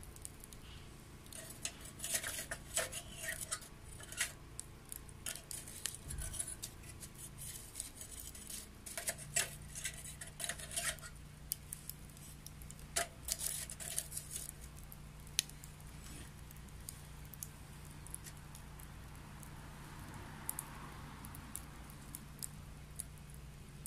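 Wet wood crackling and popping as it burns in a homemade secondary-combustion stove: clusters of sharp crackles that thin out to a few single pops after about fourteen seconds, over a low steady hum.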